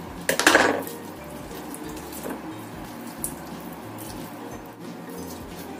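Raw chicken thigh being deboned by hand and kitchen scissors on a wooden cutting board: a brief wet squelch about half a second in, then faint handling and small clicks.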